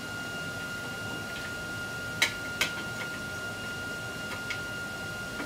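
A few light metal clinks as an aftermarket exhaust is offered up to the motorcycle's frame mounting bracket, the two sharpest about two seconds in. A steady high-pitched tone runs underneath.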